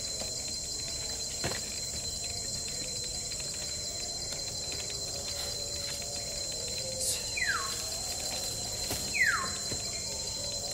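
Steady high-pitched drone of insects in the forest, with two sharp bird whistles that glide downward near the end, each under half a second. A single light knock of wooden poles comes about a second and a half in.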